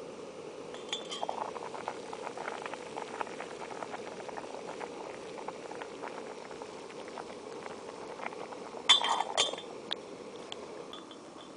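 A pot of vegetables boiling on a camping stove, bubbling and crackling. A metal lid clinks as it is lifted off about a second in, then clanks loudly back onto the pot about nine seconds in.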